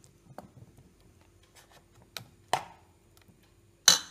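A metal spoon stirring thick chocolate cake batter in a steel bowl: scattered light taps and scrapes, then two sharper knocks of the spoon on the bowl, the louder one near the end.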